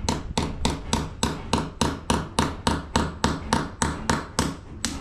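A hammer striking a nail into a wall in rapid, even blows, about four a second, each with a short metallic ring.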